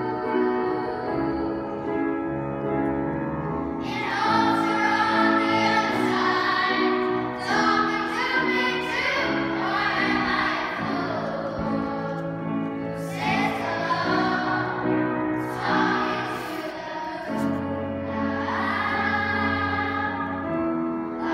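Children's choir singing a slow song with instrumental accompaniment; the voices come in stronger about four seconds in, over held accompaniment chords.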